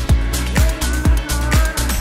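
Dance music with a kick drum on every beat, about two beats a second, over a deep bass line.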